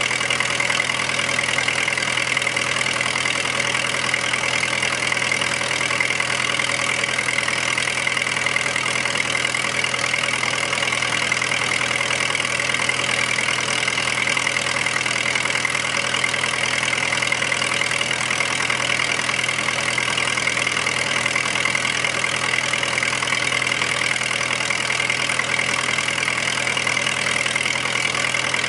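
Vintage 20 kW generator set's engine running steadily at constant speed.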